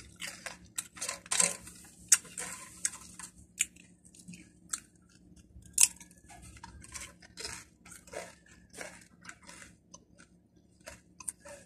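A person chewing crisp, round Red Chili snack chips with the mouth, making many short, irregular crunches.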